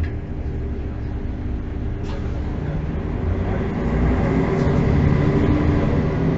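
Mercedes-Benz O405 city bus's diesel engine running, heard from inside the passenger cabin during the ride, with a steady engine hum and road noise that grow louder about halfway through.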